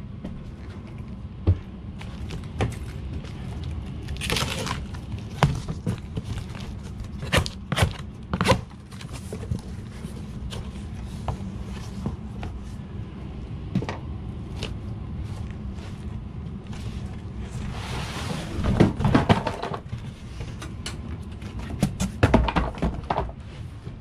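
Scattered knocks, clunks and clicks of equipment being handled, with a few longer scraping or rustling passes, about four seconds in and twice near the end, over a steady low hum.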